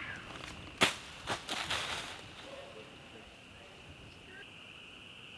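A sharp smack about a second in, then a shorter knock and a brief clatter lasting under a second, over a steady high-pitched insect drone.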